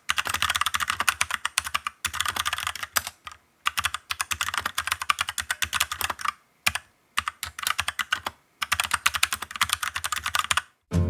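Typing on a 68-key mechanical keyboard with stock, unlubed Huano brown tactile switches: fast runs of key clacks with a few short pauses. The typing stops just before the end.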